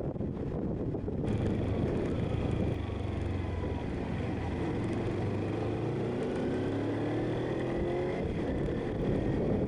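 Motorcycle engine running on the move; its pitch rises steadily for a few seconds in the second half as it accelerates.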